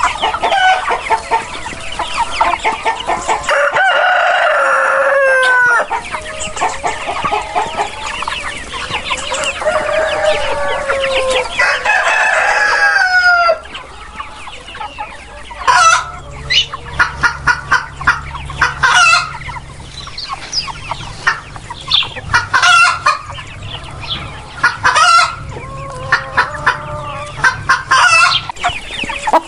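Chickens: roosters crowing, long calls that fall in pitch at the end, over many birds clucking. About halfway through, the crowing gives way to short, repeated clucks and squawks over a steady low hum.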